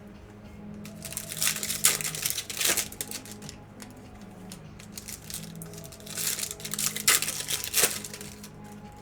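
Trading-card pack wrappers crinkling and tearing as packs are opened, in two bursts: one about a second in and one from about six to eight seconds in, over background music.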